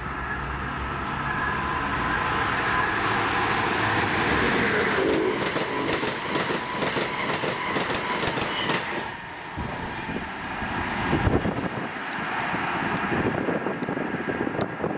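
A train passing at speed: a rising rush of wheel-on-rail noise with a rapid run of clicks in the middle.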